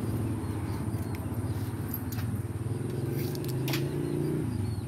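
Steady low motor drone, like a nearby engine running, with a few faint short clicks of a cleaver against a wooden chopping board.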